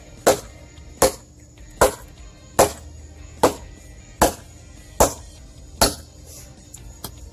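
Husqvarna hatchet chopping into a dead log with two-handed swings: eight sharp strikes at an even pace, a little more than one a second, then a couple of faint ticks near the end.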